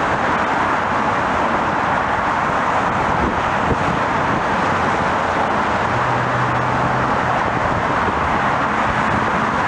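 Steady, even roar of distant engines, with no rise or fall.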